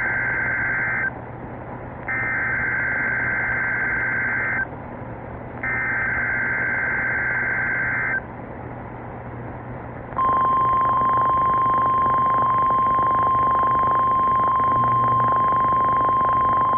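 NOAA Weather Radio test signal heard through a weather radio receiver. It opens with the end of one burst of SAME digital header tones and two more identical bursts, each about two and a half seconds long with a second's pause between them. About ten seconds in, the steady single-pitch warning alarm tone begins and holds, all over a constant radio hiss.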